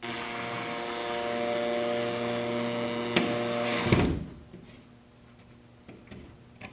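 Makita 18V cordless drill running steadily for about four seconds, driving a drywall anchor into drywall. It stops with a sharp knock about four seconds in.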